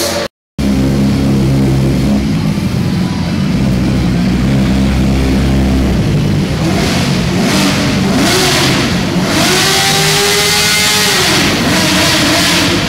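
Sport motorcycle engines running at a steady idle, then revved up and down several times in the second half, the pitch rising and falling with each blip.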